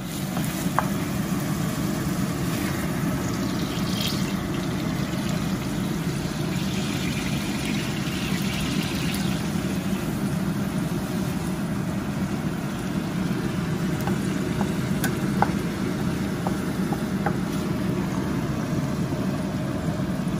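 Food frying in a pan on the stove, a steady sizzle over an even low drone, with a few light clicks of a cooking utensil.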